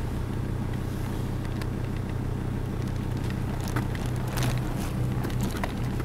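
Car engine running steadily with a low hum and road noise, heard from inside the cabin while driving on a rough dirt track, with a few faint knocks and rattles.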